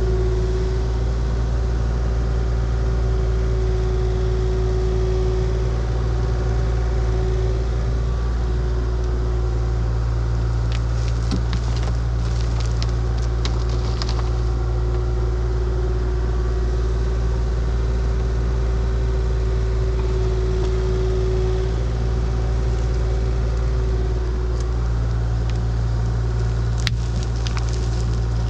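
Diesel engine of a Kubota compact construction machine idling steadily while it warms up, with a constant low rumble and hum. A few light clicks come through about halfway and near the end.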